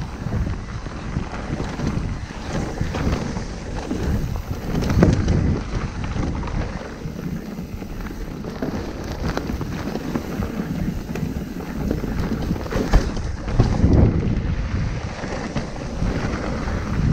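Wind buffeting the microphone as a mountain bike is ridden down a rough trail, with many short knocks and rattles from the bike. It gets louder about five seconds in and again near the end.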